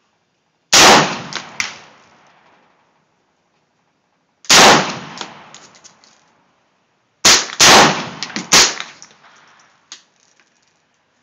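AR-15 rifle firing five shots: two single shots about four seconds apart, then three close together about seven seconds in, each trailing off in a rolling echo.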